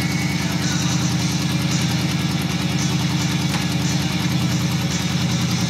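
Suzuki GS550's air-cooled inline-four engine idling steadily, at an even pitch, with its idle now adjusted to run right.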